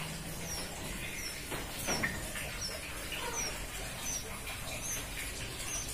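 Caged birds chirping: a short, thin, falling high note repeated about every three-quarters of a second, with a few fainter lower chirps. A single sharp knock sounds about two seconds in.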